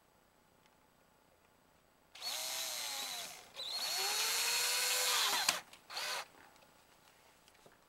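Cordless drill-driver with a screwdriver bit driving a screw into a wall switch's mounting frame. It runs in two spells of a second or two each, the motor's pitch rising as it spins up and falling as it slows, then gives a brief third burst.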